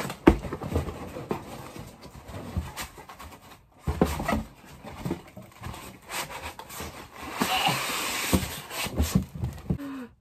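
A cardboard gift box being opened and handled, with scattered knocks and packaging rustles and a longer, louder rustle about seven to eight seconds in.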